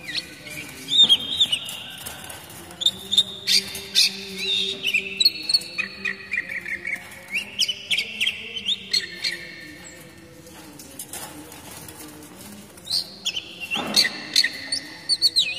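Oriental magpie-robin singing a fast run of sweet whistles and chirps, with a quieter lull about two-thirds of the way through and a fresh burst of song near the end, where a sharp knock also sounds.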